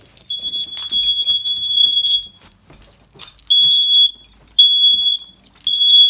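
Smoke alarm sounding a high-pitched piercing tone, set off by test smoke during a fire alarm system test: one long tone for about two seconds, then three shorter beeps in the second half.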